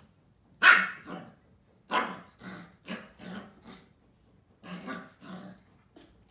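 Husky puppy barking in a string of short barks, about ten in all with brief pauses, the loudest about a second in.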